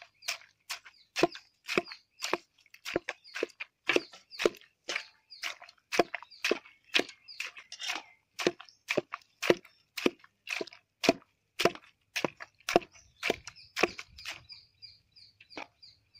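A wooden masher pounding chunks of watermelon in a stainless steel pot, crushing them for juice. Steady pounding strokes, about two a second, that thin out and stop near the end.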